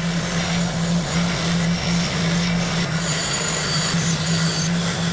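A power tool running steadily with a continuous grinding, scraping noise as it works against metal.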